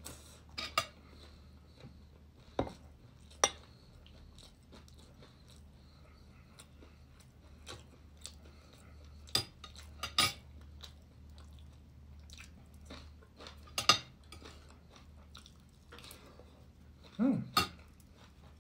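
Tableware clinking during a meal: about seven sharp, scattered knocks of a spoon and dishes against a plate and glass bowl, with quiet chewing between them.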